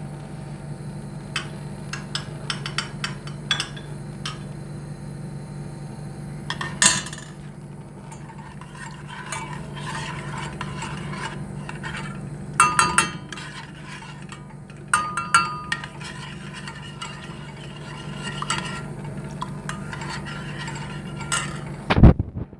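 Metal spoon stirring a yogurt-and-egg soup batter in a stainless steel pot, clinking and scraping against the pot's sides and bottom. It comes in several louder flurries of clinks, with a sharp knock near the end, over a steady low hum.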